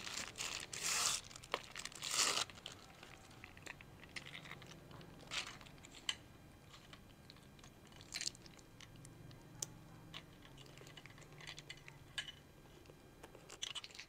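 Clear plastic wrapping crinkling and rustling as a new handbag strap is unwrapped. It is loudest for the first couple of seconds, then gives way to quieter handling with scattered small clicks.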